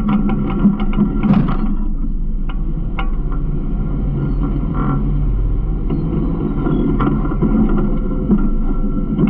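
Garbage truck engine running with a steady low drone, with a few sharp rattles and clicks scattered through it.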